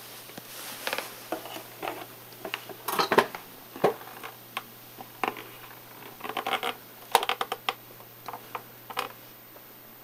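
Irregular plastic clicks, knocks and rattles as an iRobot Dirt Dog robot vacuum is handled, lifted and turned over; its motors are not running.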